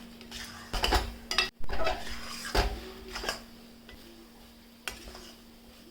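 A utensil scraping and clinking against a pan as thick halwa is stirred continuously to keep it from sticking and burning at the bottom, with a few sharp knocks in the first half and sparser strokes later, over a faint steady hum.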